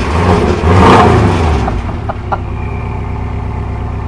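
Porsche 718 Cayman engine through its factory exhaust, revved once about a second in, then settling back to a steady idle. The engine is running just after a cold start.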